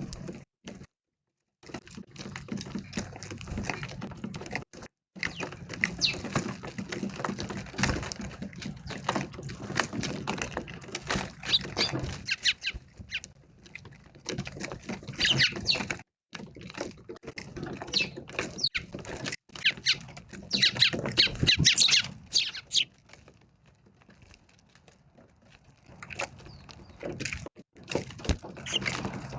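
Eurasian tree sparrows chirping in short high calls, over many light taps and patters of small birds pecking and hopping at food. It eases to a quieter patch about two-thirds of the way through.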